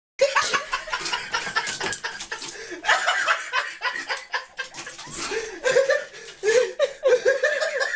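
People laughing, on and off.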